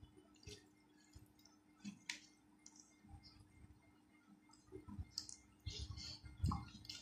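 Fingers kneading rice with liver curry on a plate, making soft wet squishes and small clicks; from about five seconds in, louder mouth and chewing sounds as a handful is eaten.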